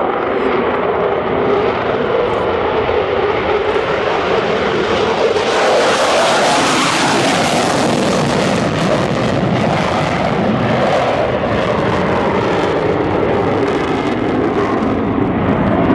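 Eurofighter Typhoon's twin EJ200 turbofans in afterburner on takeoff and climb-out: a loud, continuous jet noise that swells to its fullest about six seconds in as the jet passes, then carries on as a lower rumble while it climbs away.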